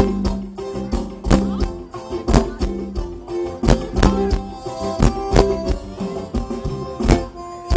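Live sertanejo band playing an instrumental passage: accordion holding chords over a drum beat with sharp hits about once a second, with acoustic guitar underneath.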